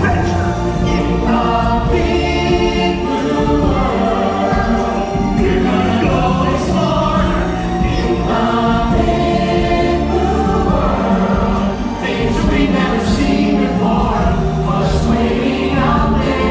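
Musical-theatre ensemble number: many voices singing together in chorus over full, loud instrumental music.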